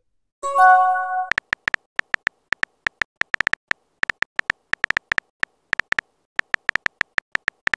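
Phone messaging sound effects: a short alert tone of several steady notes held together for about a second, then a run of light keyboard tap clicks, several a second, as a text message is typed.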